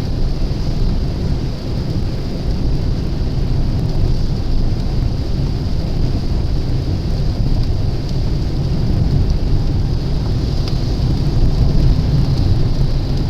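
Steady rain hiss over the low, even rumble of a car driving in the rain, as heard from inside the car.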